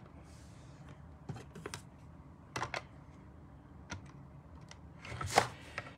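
Clicks and taps of clear plastic cutting plates and a small cutting die being handled and set down on a manual die-cutting machine's platform, with a louder clatter about five seconds in.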